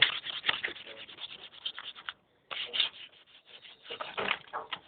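Sanding by hand: sandpaper rubbing on the project in quick, uneven strokes, pausing briefly about two seconds in before carrying on.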